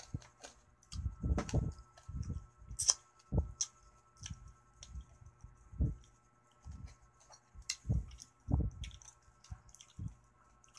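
Close-up eating sounds: wet chewing and lip smacks on a mouthful of rice and fish, with fingers pressing and scooping rice on a plate. Irregular soft thuds and sharp clicks.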